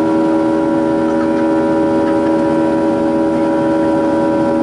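Boeing 737-800's CFM56-7B turbofan engines at climb power, heard from inside the cabin: a steady rush of noise with a constant drone of several held tones underneath.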